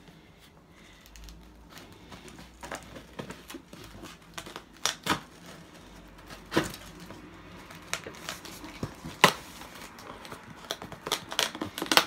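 Scissors scraping and cutting at the packing tape on a cardboard shipping box, with irregular clicks, taps and crinkles of tape and cardboard as the box is worked open; a few sharper snaps stand out, the loudest about nine seconds in.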